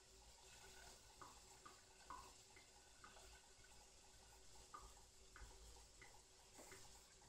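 Faint, irregular crackles and pops of fat around frozen breaded cutlets frying on low heat under a glass lid, over a faint steady hum.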